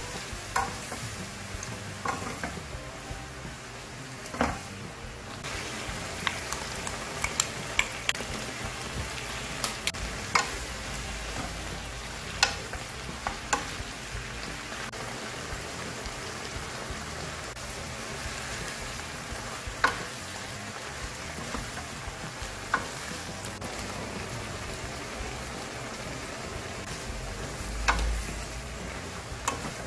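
Cabbage, zucchini and onion sizzling as they are stir-fried in a nonstick frying pan, with a wooden spatula scraping and knocking against the pan every second or two.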